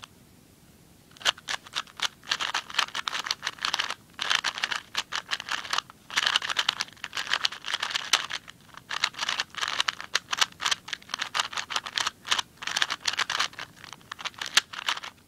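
A new LingPo 2x2 speed cube being turned rapidly by hand: quick runs of plastic clicking and clacking from its layers, starting about a second in, with short pauses between bursts of turns.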